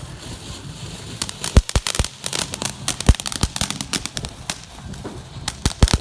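Consumer fireworks going off: an irregular run of sharp pops and cracks starting about a second and a half in, with the loudest bangs near the start of the run and again near the end.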